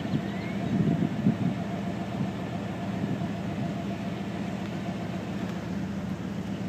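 A vehicle engine idling, a steady, even hum with no sudden sounds.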